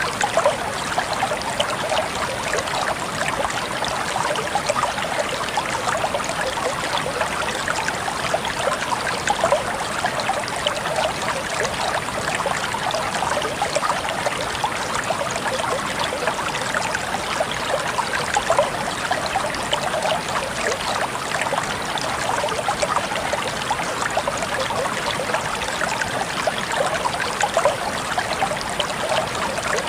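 Steady rushing and splashing of falling water from a small waterfall.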